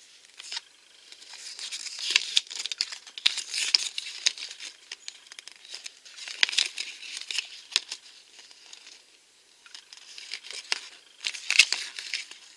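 A folded paper collector's checklist being unfolded and handled, crinkling and crackling in three stretches of a few seconds each, with quieter gaps between.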